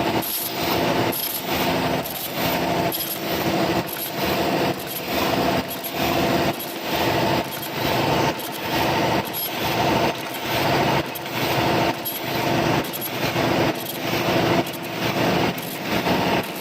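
OCM12 ultrasonic paper cup forming machine running, its mechanism cycling with a regular clatter about once a second over a steady hum.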